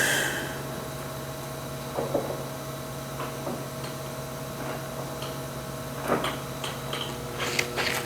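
MSC Valuemaster 14-40G engine lathe running under power with a steady hum, with scattered light clicks and knocks.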